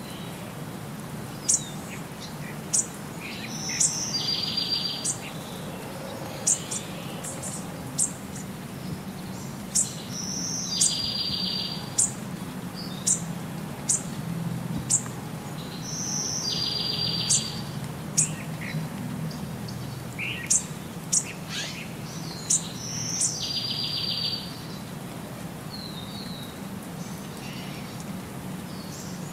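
High bird-like chirps and short trills over a low steady hum. The same phrase repeats about every six and a half seconds, as from a looped recording.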